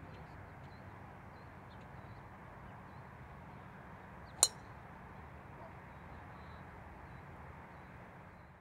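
Golf club striking a teed-up ball once: a single sharp crack about four and a half seconds in, over a faint steady outdoor background.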